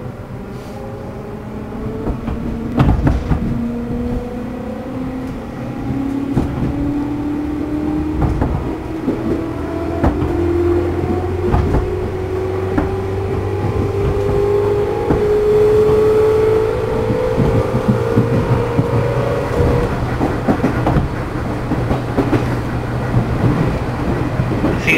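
JR East 211 series car MoHa 211-1's externally fan-cooled traction motors whining as the train accelerates under power. The pitch rises steadily over about twenty seconds and then fades, over a running rumble with clicks from the wheels.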